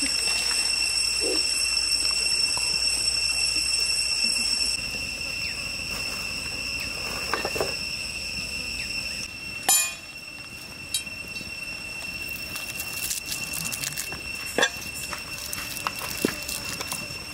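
Steady high-pitched drone of forest insects, several pure tones held together, dropping in level about five seconds in. A few sharp clicks and knocks in the second half.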